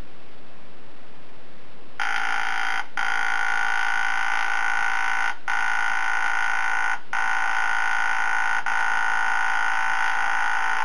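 A handheld air-powered marking tool buzzes steadily as it stamps an identification mark into an outboard motor's cowling. It starts about two seconds in, breaks off briefly four times, and cuts off near the end.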